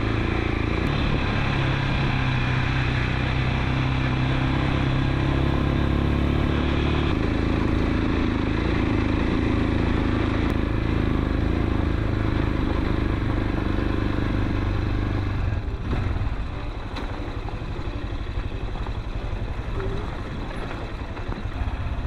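Motorcycle engine running under way on a rough, rocky road. The engine note changes about seven seconds in, and the engine eases off about two-thirds of the way through.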